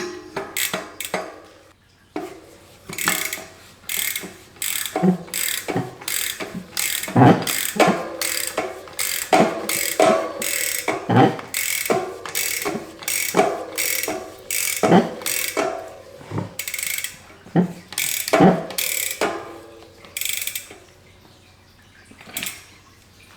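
Metallic ratcheting clicks and clinks, a sharp stroke about every half second to second with a short ring after each, as an SRAM XX1 cassette is fitted and tightened onto a bicycle's rear hub. They stop about two seconds before the end.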